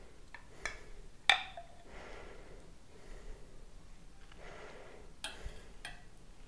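Metal spoon clinking against a glass honey jar and a small steel pot while honey is spooned into the pot: a few light, scattered clinks, the sharpest about a second in and two more near the end.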